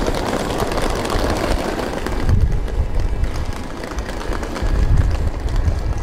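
Street noise beside a tram at a stop: an even noisy hum, and after about two seconds mostly a low, uneven rumble that swells twice.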